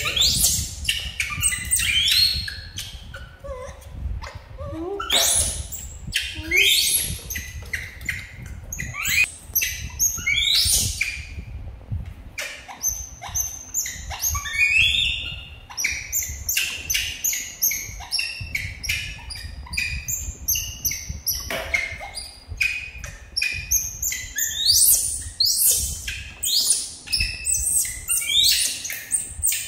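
Baby macaques giving repeated high, squeaky chirps and squeals that slide quickly up and down in pitch, on and off throughout, the excited calls of young monkeys waiting to be fed. Small clicks and taps come between the calls.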